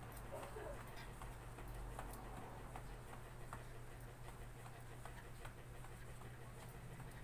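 Faint, irregular light footfalls on a floor from someone jogging in place, over a steady low hum.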